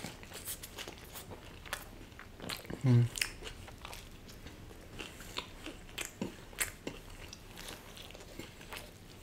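Close-up biting and chewing of a cheese burst pizza, the crust crunching in many sharp clicks. There is a short, low voiced hum from the eater about three seconds in.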